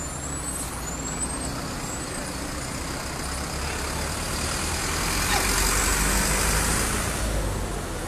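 A heavy road vehicle passing close by: a low rumble and road noise that swells to its loudest about six seconds in, then fades. Three short high chirps sound in the first two seconds.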